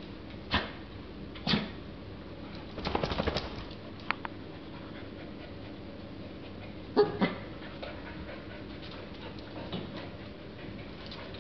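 Two Portuguese Water Dogs playing, making short sharp sounds: a few single ones, a quick run of pulses about three seconds in, and the two loudest close together about seven seconds in.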